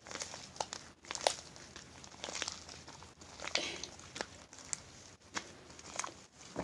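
Slime being worked by hand with shaving cream mixed in: quiet, irregular sticky clicks and small crackling pops.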